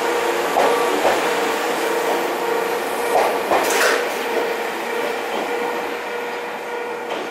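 Ohmi Railway 100 series two-car electric train pulling out and passing close by: its wheels knock over rail joints under a steady hum, with a brief high hiss about four seconds in. The sound fades as the train moves off.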